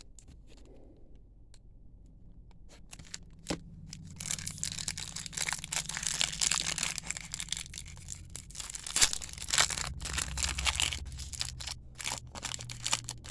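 Plastic trading card pack wrapper being torn open and crinkled by hand, with cards shuffled out of it. It starts about four seconds in and goes on as a dense crackle, with louder crinkles near the middle.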